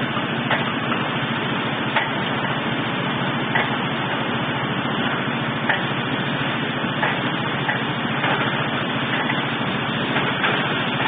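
Small diesel water well drilling rig running steadily, with a few sharp clicks at irregular intervals.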